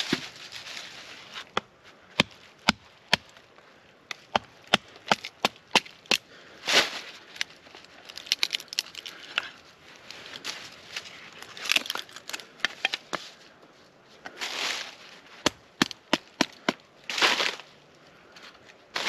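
Wood being processed with a knife batoned by a wooden stick: many sharp wooden knocks at an uneven pace, with a few longer noisy sounds between them.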